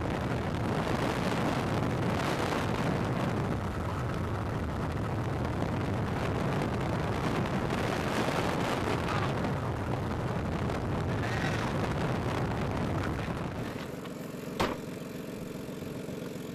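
Car driving with a window open: a steady rush of wind and road noise. About 13 seconds in it drops to a quieter hum, with a single sharp click a second later.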